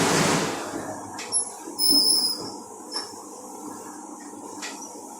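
Commercial rack conveyor dishwasher running: a loud hiss dies away about half a second in, leaving a quieter machine noise with short high-pitched squeals and a few sharp clicks.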